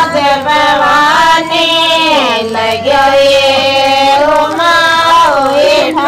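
A woman singing a Hindu devotional bhajan to the goddess Jeen Mata, in a high voice with long held notes that waver and glide between pitches.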